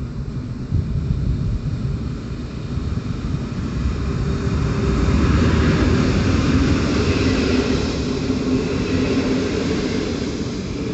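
Locomotive-hauled passenger train running past along the platform: a steady rumble of wheels on rails that grows louder about four seconds in as the locomotive draws alongside, with a steady hum under it, then the coaches rolling by.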